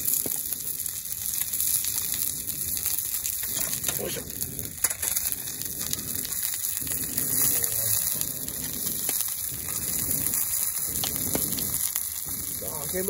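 A thick beef steak sizzling on a heavy iron griddle over a wood campfire: a steady, high frying hiss.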